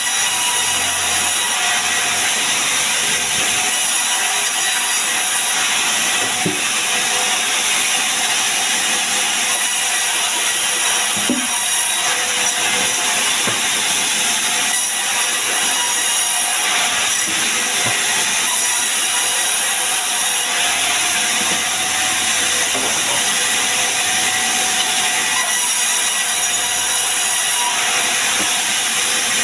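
Vertical sawmill band saw running steadily and cutting sengon logs into beams: a continuous loud, high hiss and whine of the blade, with a few faint knocks of the wood on the table.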